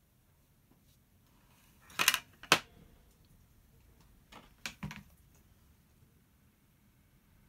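Painting supplies handled on a wooden tabletop: a short clatter and a sharp click about two seconds in, then a few lighter knocks near five seconds.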